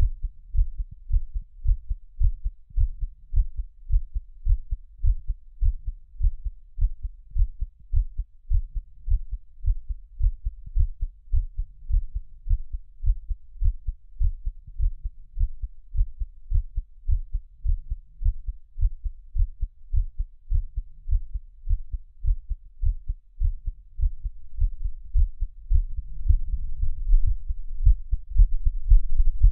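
A person's heartbeat recorded close up: deep, low lub-dub beats repeating quickly and evenly. Near the end a low steady rumble rises under the beats.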